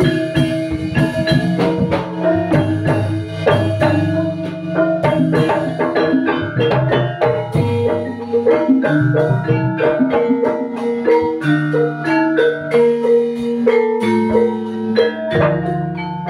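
Javanese gamelan ensemble in pelog tuning playing: bronze keys and pot gongs struck in a busy run of notes, each ringing on, over long-held low gong tones.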